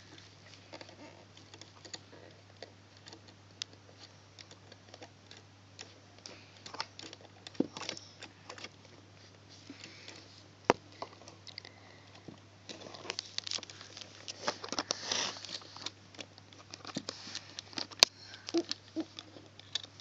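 Rubber loom bands being stretched and hooked onto the pegs of a plastic Fun Loom by hand: scattered small clicks and taps, busier from about two-thirds of the way in, with a couple of sharper clicks. A steady low hum runs underneath.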